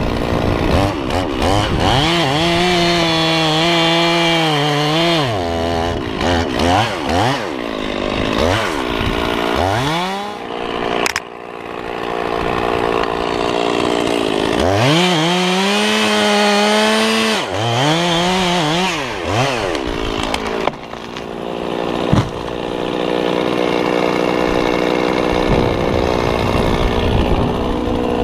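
Large chainsaw cutting through a big cottonwood trunk at ground level. The engine holds a steady high pitch while loaded in the cut, then rises and falls in quick revs between cuts, twice over, and runs more evenly near the end.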